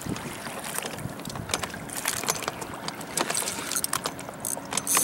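Lake water lapping and slapping against the hull of a small fishing boat, with wind noise and irregular sharp clicks and knocks.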